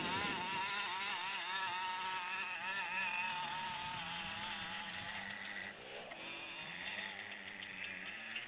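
Two-stroke petrol engine of a 1:5-scale FG RC monster truck, revved up and down repeatedly under throttle, then fainter after about five seconds with a brief rev later on.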